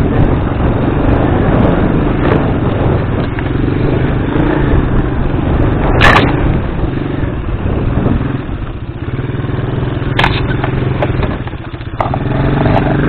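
Strong wind buffeting the microphone: a loud, continuous rumble, with a few sharp knocks, the clearest about six seconds in and again about ten seconds in.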